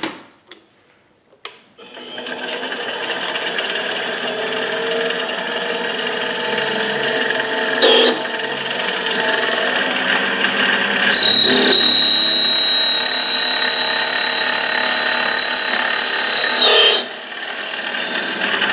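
Benchtop mini lathe starting up about two seconds in and running, with a carbide boring bar cutting into titanium. A high, steady squeal comes in about six seconds in, breaks off twice, and carries on to near the end. By then the titanium is throwing sparks and running hot.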